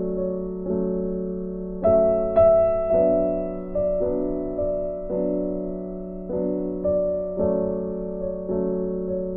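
Background piano music: slow, gentle chords struck about once a second, each fading away before the next.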